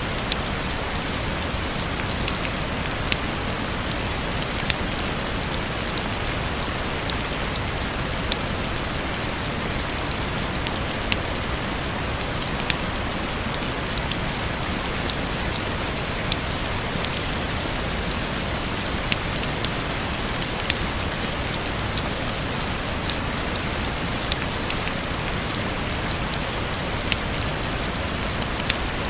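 Steady rain falling, a dense even hiss with scattered sharp drips and ticks of single drops striking a surface.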